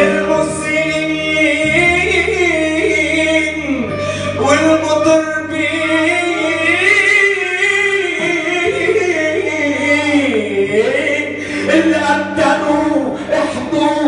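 A man singing live into a microphone, long held and ornamented notes, over steady instrumental accompaniment.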